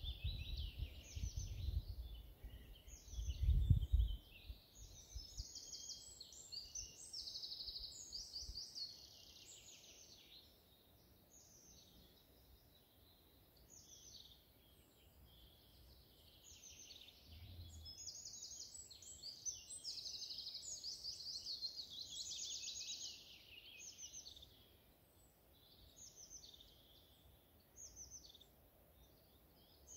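Several songbirds singing at once, overlapping chirps and trills throughout. During the first few seconds, low rumbling thumps, loudest about four seconds in.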